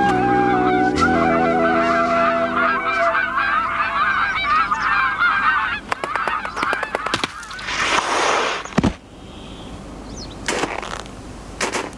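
A flock of geese honking, many overlapping calls for about the first half, over held notes of background music that fade out. After that come a few sharp knocks, a short rushing noise, and more knocks near the end.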